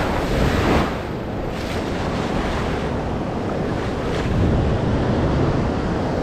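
Ocean surf breaking and washing up the beach, a steady rush that swells near the start and again about four seconds in, with wind buffeting the microphone.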